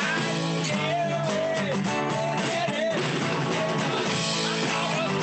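Live rock music: an acoustic guitar strummed with a drum kit keeping the beat and a man singing along.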